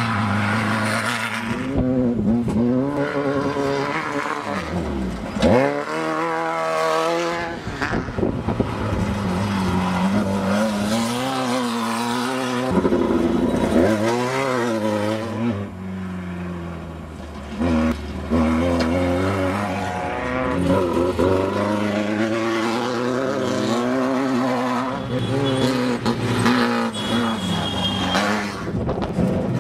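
Off-road desert race vehicles (buggies and trucks) running past one after another. Their engines rev up and down repeatedly, the pitch rising and falling many times.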